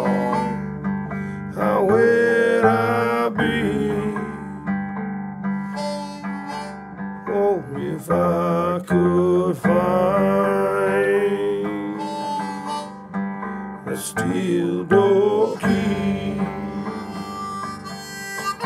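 Background music: a song in an instrumental break without singing, a lead instrument bending its notes over guitar.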